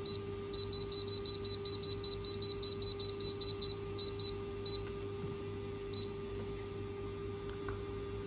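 A rapid run of short, high electronic beeps, about five a second for nearly four seconds, then a few spaced single beeps, from the Autumnz 8-in-1 baby food processor's control panel.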